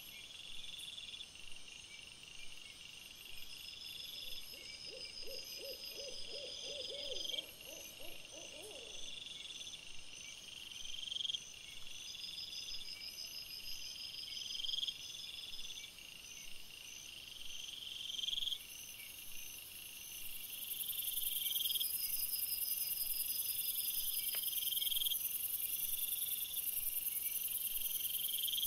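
Insect-like trills, a high buzzing chirp repeating about every two seconds, with a low quavering hoot from about four to nine seconds in. A high steady hiss comes in about two-thirds of the way through.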